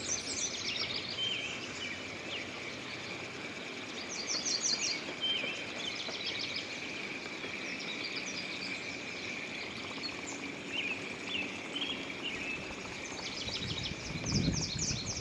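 Wild birds chirping and singing short rapid trills over a steady high-pitched drone, with some low rustling near the end.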